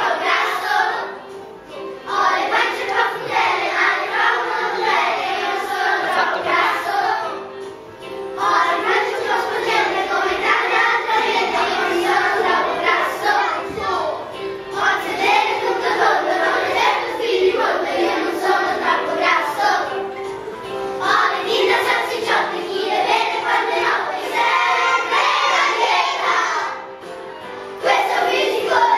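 A group of children singing a song together, in phrases separated by short pauses.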